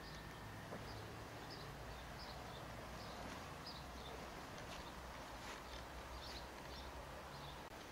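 Faint outdoor ambience: a small bird chirping over and over, short high chirps every second or so, over a low steady rumble.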